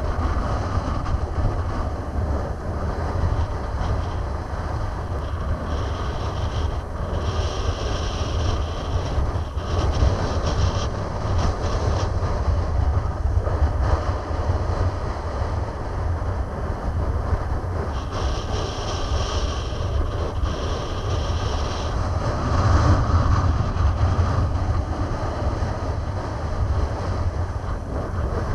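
Wind buffeting the microphone in a steady low rumble, over choppy water splashing and washing against a concrete embankment. A brighter hiss comes in twice for a few seconds.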